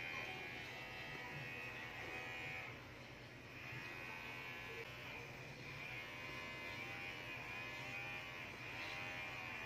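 Corded electric pet hair clipper buzzing steadily as it trims a Shih Tzu's fur, its pitch dipping slightly and recovering now and then as the blades move through the coat.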